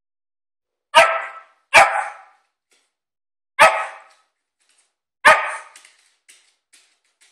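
Small Shih Tzu–poodle mix dog barking four times at a new bone in play: two quick barks about a second apart, then two more spaced out. A few faint clicks follow near the end.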